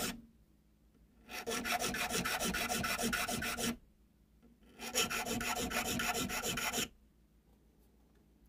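Nicholson triangle file rasping across the spine of knife liners clamped in a vise, cutting notches: two bouts of quick filing strokes, each a couple of seconds long, with short pauses between.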